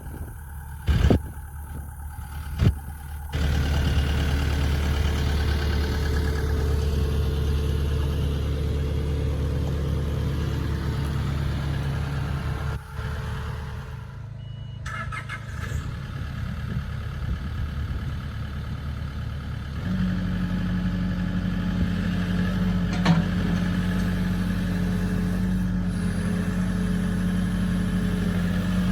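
Diesel engine of a Takeuchi TB290 excavator. After two sharp clicks, the engine comes in about three seconds in and runs steadily. About twenty seconds in it steps up to a higher, steady speed.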